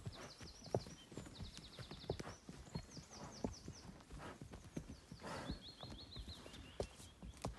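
Horses' hooves clip-clopping at a walk along a trail, irregular knocks. Over them, a small songbird sings several short trills of quick, falling high notes.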